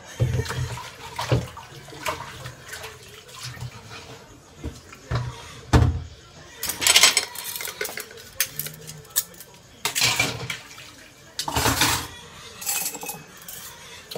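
Dishes being washed in a stainless steel sink: plates and utensils clatter and knock against each other and the basin, with several short bursts of running water.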